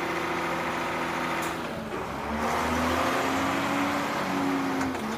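Garbage truck engine running as the truck drives off: a steady hum, then about two seconds in the engine note dips and climbs again with more low rumble, easing back down near the end.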